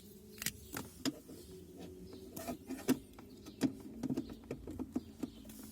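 Irregular clicks and knocks of a power cable being handled and plugged into a Brake Buddy supplemental braking unit, over a faint steady hum.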